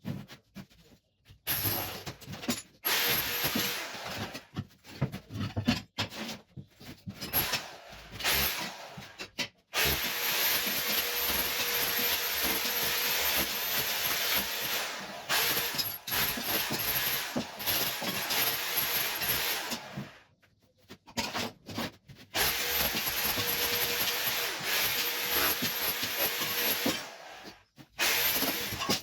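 Power tool chipping old wall tiles off, in short irregular bursts at first and then in long steady runs with two short breaks.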